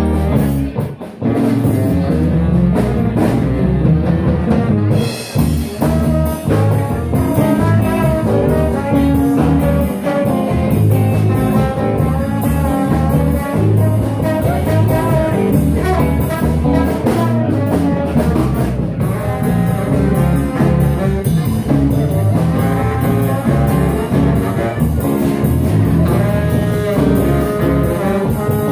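Live band playing an instrumental break in a blues-rock song, with brass, electric guitar and drum kit.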